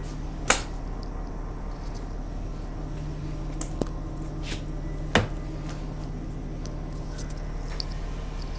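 Inside a city bus: a steady low engine and drivetrain hum, with a few sharp rattling clicks from the body and fittings, the loudest about half a second in and about five seconds in.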